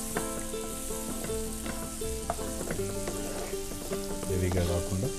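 Chopped onions and green chillies frying in butter and oil in a pan, with a steady sizzle, while a wooden spatula stirs them and scrapes and knocks against the pan now and then.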